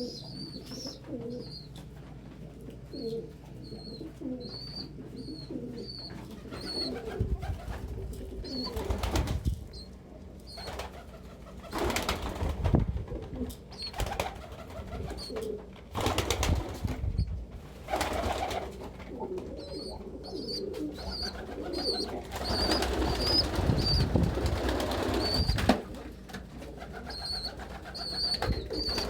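Domestic pigeons cooing in a small loft room, over a repeated high-pitched peeping. Several loud rustling bursts break in, the longest lasting a few seconds near the end.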